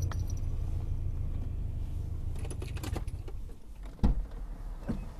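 Steady low rumble of a car idling, heard from inside the cabin, with a few light clicks about two and a half to three seconds in and a short thump about four seconds in.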